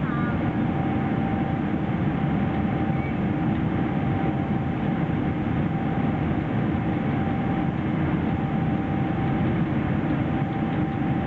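Steady in-flight cabin noise of a Boeing 777-300ER airliner: the rumble and hiss of its GE90 jet engines and the airflow, with a faint steady tone above it, unchanging throughout.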